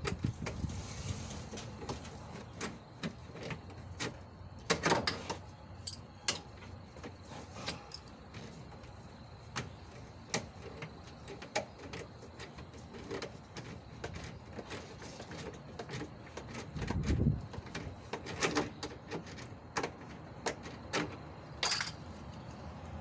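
Irregular metallic clicks, clinks and scrapes of pincers working at a bolt on a car's engine cooling fan. There is a louder clatter about five seconds in and a dull thump a little after the middle.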